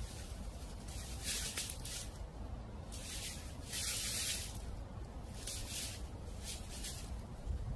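Footsteps crunching through dry fallen leaves: about five rustling crunches roughly a second apart, the loudest about four seconds in, over a steady low rumble of wind.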